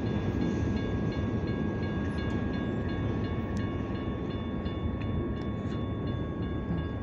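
Train rolling away from the crossing: a steady low rumble that fades slightly, with several steady high ringing tones held over it.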